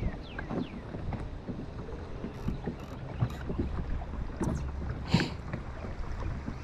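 Wind on the microphone and the low rumble of a fishing boat on the water, with scattered small knocks and clicks. Near the start a bird gives a few quick falling whistles, and about five seconds in there is a short hiss.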